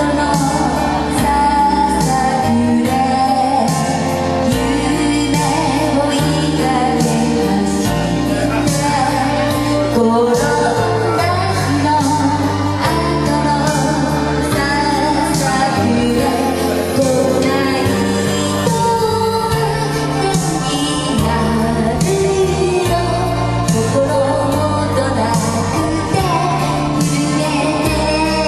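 A woman singing a Japanese song solo into a microphone over a karaoke backing track with a steady beat.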